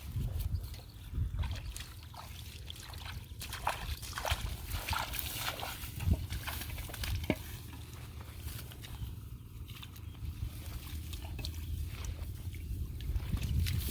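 Shallow water sloshing and splashing in irregular small splashes and trickles.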